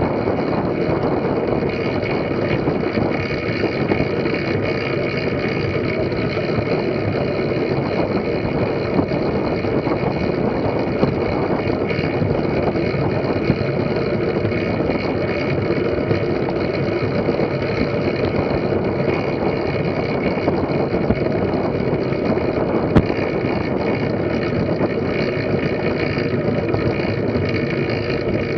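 Steady rumble of track-bike tyres rolling over wooden velodrome boards, mixed with wind rushing over a bike-mounted camera's microphone at riding speed. One sharp click near the end.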